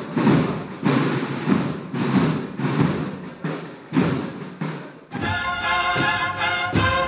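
A band plays a slow Holy Week procession march with strong drum beats about one and a half times a second. About five seconds in it cuts abruptly to a different, cleaner piece of music with sustained brass notes.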